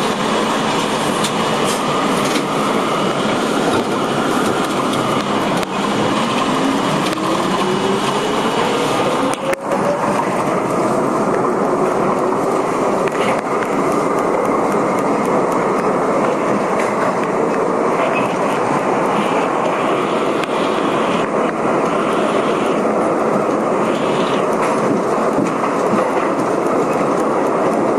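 Budd-built R32 subway train running through a tunnel: a loud, steady rumble of wheels on rail, with a motor whine rising in pitch about six to eleven seconds in as the train picks up speed.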